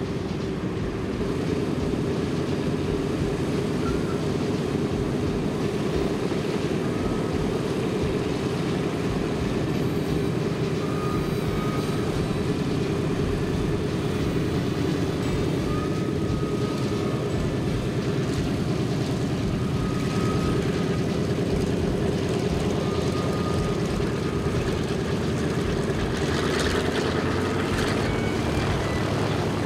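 Radial piston engines of a Boeing B-17G Flying Fortress (Wright R-1820 Cyclones) running on the ground, a low, steady, even drone. Near the end a brief rush of noise rises over it.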